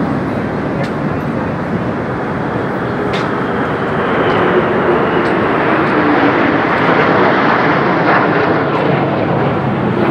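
Three military jets flying over in formation: a jet roar that swells about four seconds in, with a whine that drops in pitch as they pass.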